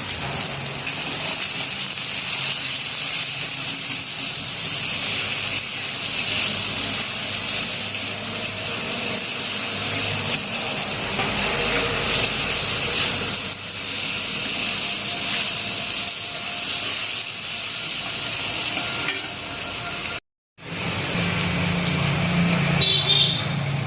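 Potato and radish pieces frying in hot refined vegetable oil in a pan, a steady sizzle, just after salt and turmeric have gone in. The sizzle breaks off in a brief gap near the end.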